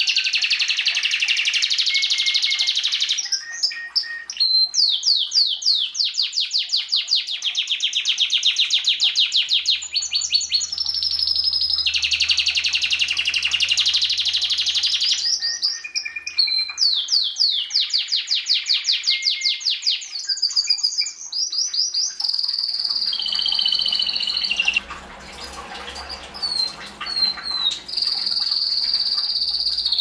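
Domestic canary singing: a long, loud song of fast rolling trills and rapid repeated high notes, phrase after phrase with short breaks, turning to held whistled notes near the end.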